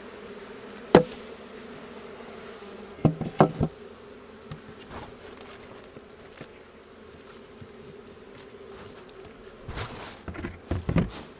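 Honeybees buzzing steadily at an open hive from a colony judged to be queenless, with a few sharp knocks: the loudest about a second in, a short cluster around three seconds and more near the end.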